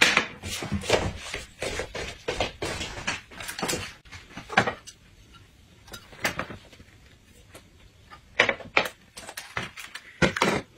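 Dishes and cutlery clinking and knocking: plates and bowls set down and moved on a table, with a run of quick clatters in the first few seconds and a few separate knocks later.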